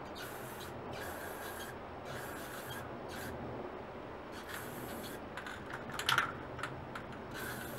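Rust-Oleum aerosol spray paint can spraying in a series of short hissing bursts with brief gaps, one burst about six seconds in louder than the rest.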